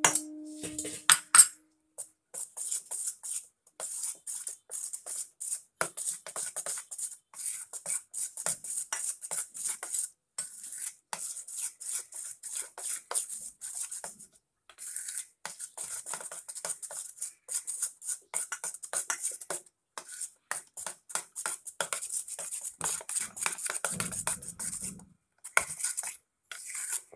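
Spoon stirring pakora batter in a steel bowl: quick, rhythmic wet scraping and clicking against the metal, several strokes a second, with a few brief pauses.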